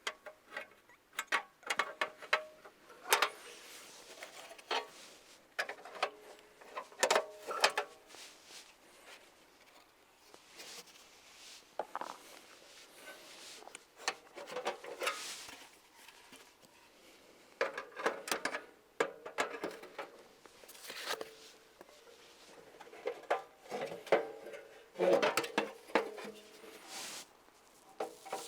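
Objects being handled and set down: irregular clicks, knocks and light clatter with rustling between them.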